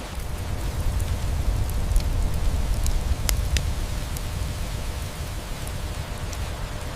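Steady rain with a deep low rumble underneath, and scattered sharp crackles and pops of a wood fire, with a louder pair of pops about three seconds in.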